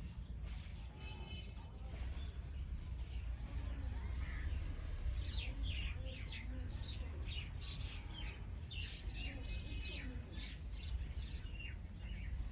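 Several small birds chirping in quick, short calls that overlap, busiest in the middle of the stretch, over a steady low rumble.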